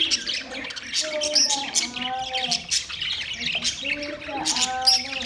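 Flock of budgerigars chattering, a dense stream of rapid chirps, squeaks and warbles.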